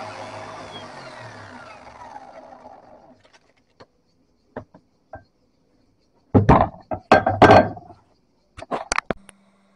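A power tool's electric motor coasting down after switch-off, its whine falling in pitch and fading away over about three seconds. Then scattered clicks, a louder spell of knocking and clattering about six seconds in, and a few more clicks near the end.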